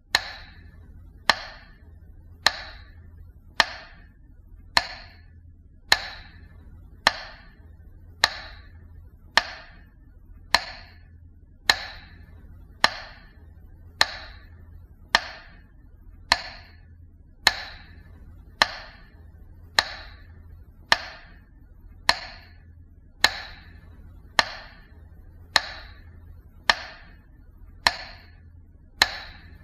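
Metronome ticking slowly and evenly, one sharp click a little more than once a second, over a faint low hum. It is the ticking that marks a Russian minute of silence for the war dead.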